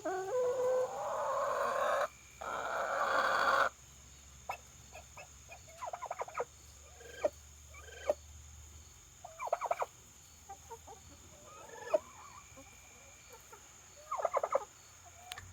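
Turkey hen calling: two long, noisy, hissing calls in the first four seconds, then scattered short clucks every second or two. The owner takes these strange noises for the hen reacting to her reflection as if to another turkey.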